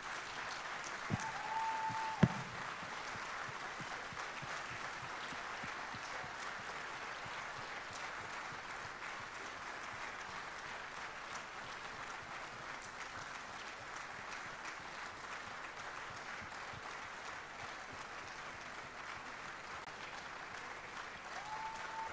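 A standing crowd applauding steadily in a long ovation. About two seconds in there is a brief steady tone and a single sharp knock, which is the loudest moment; the tone comes once more at the very end.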